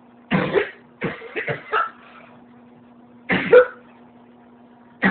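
A woman's persistent cough, in fits: one harsh cough shortly after the start, a quick run of three or four coughs about a second in, and another cough a little over three seconds in. A faint steady hum sits underneath between the coughs.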